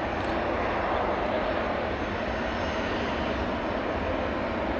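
Bombardier Learjet 60 business jet's twin turbofan engines running steadily at low power as the jet rolls along the ground: an even jet rush with no change in level.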